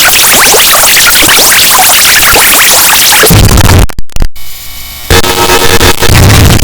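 Heavily distorted, clipped music run through meme-style audio effects. For about three seconds it is a dense noisy wash full of quick rising pitch streaks. Then the sound stutters and cuts out briefly about four seconds in, and loud steady pitched tones come in near the end.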